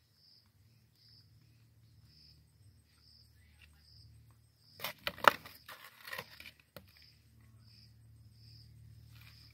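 An insect chirping in a steady rhythm, a short high chirp about every two-thirds of a second. About five seconds in, a loud burst of knocking and rustling lasts a second or so.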